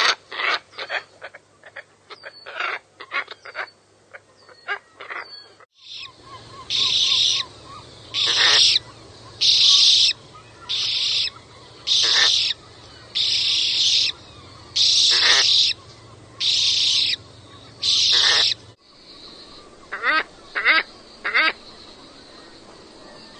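Scarlet ibises calling: a quick run of short, harsh calls, then a series of about nine longer rasping calls spaced a little over a second apart, then a few short calls again near the end.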